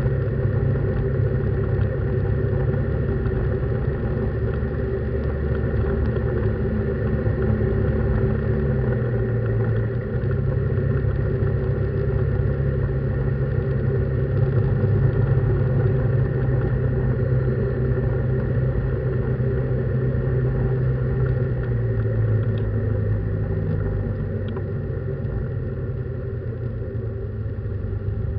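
Engine and road noise inside a vehicle's cabin while driving: a steady low hum that drops a little in pitch and gets quieter near the end as the vehicle slows.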